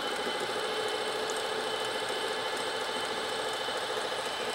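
A Panasonic RQ-705 portable reel-to-reel's motor and its belt-and-idler transport running steadily in play at the higher tape speed, with a fast, even mechanical whir. The rubber idler drive is slipping a bit: its rubber has dried hard, and the owner suspects its spring is not strong enough.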